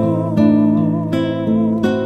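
Instrumental music: an acoustic guitar plays plucked chords, with a new chord sounding every half second or so.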